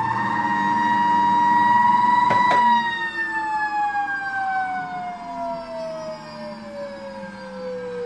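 Beko BKS 9537 vacuum cleaner motor running with a high whine, switched off with a click about two and a half seconds in, then coasting down for a long time, its whine falling steadily in pitch. It makes what is called a strange sound, and the repairer suspects worn bearings or a shifted motor shaft.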